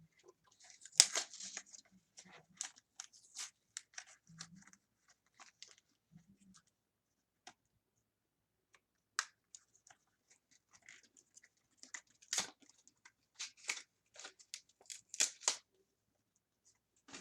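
Packaging being handled and cleared away: scattered clicks, taps and short rustles of cardboard and plastic, the sharpest about a second in and a busier run near the end.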